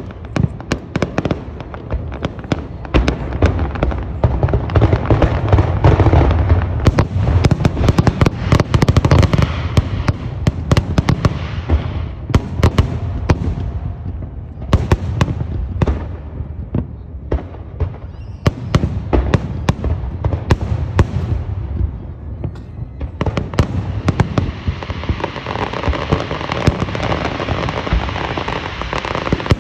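Fireworks display: a dense run of booming shell bursts and rapid crackling, heaviest in two stretches, one in the first half and one near the end.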